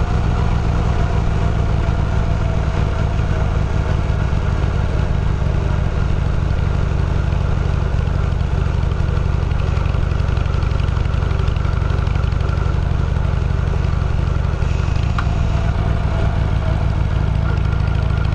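Steady engine and road noise from a running vehicle, heaviest in the low end, unchanging throughout.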